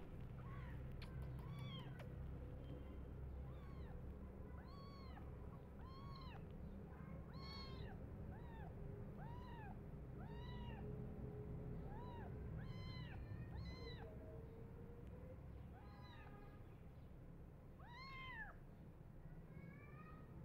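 Tiny kittens meowing over and over, short high cries that rise and fall, about one a second, with a brief lull about two-thirds through: hungry kittens crying for the milk bottle.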